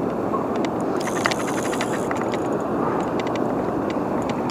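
Steady rush of water pouring over a dam, with scattered sharp clicks from a spinning reel as its handle is cranked to bring in a hooked channel catfish.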